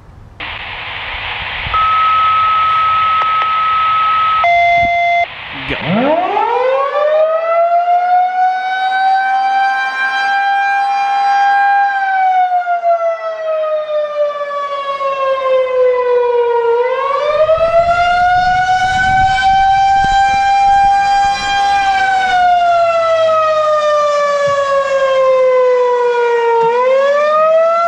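A hiss and two brief steady tones, then a Federal Signal 2001-130 electromechanical rotating siren winds up from a low pitch and sounds its attack signal. It is a slow wail that rises, holds, falls and rises again, about ten seconds per cycle, swelling as the horn turns.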